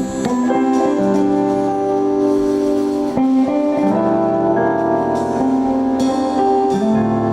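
Instrumental praise music: held, sustained chords that shift to new harmonies every second or two.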